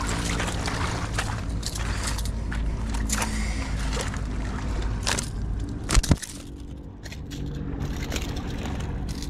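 A landed cutlassfish thrashing on coastal rocks, its body making light clicks and scrapes against the stones, with two sharp knocks about six seconds in. A steady low mechanical hum runs underneath.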